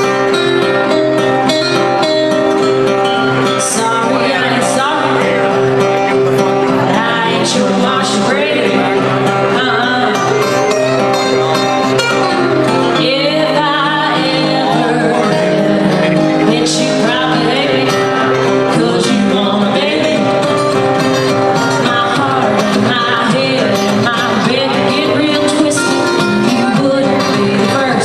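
Live country song: a woman singing lead over two strummed acoustic guitars.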